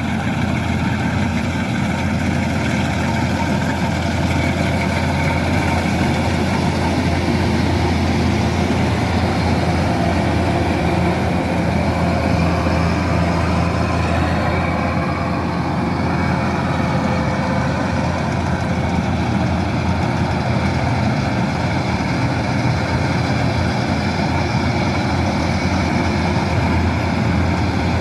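Kubota DC-108X combine harvester's diesel engine and machinery running steadily, a continuous drone with several held tones.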